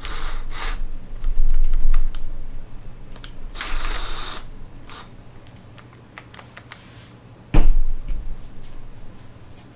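Hand tools and metal parts being handled on a manual transmission on the bench: scattered clicks, rattles and short scraping bursts, with a loud knock about seven and a half seconds in.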